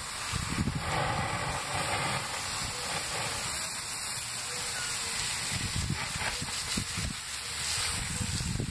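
Water from a garden hose nozzle spraying onto the hot embers of a burned-out tree stump, hissing steadily as it flashes into steam. Gusts of wind buffet the microphone with low rumbles.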